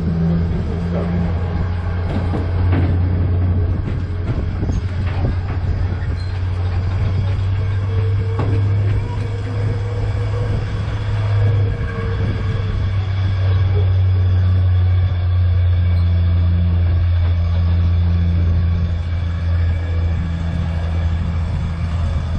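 Engine of an open fairground tram running steadily as it drives along, heard from aboard as a steady low drone. A few light knocks or rattles come in the first few seconds.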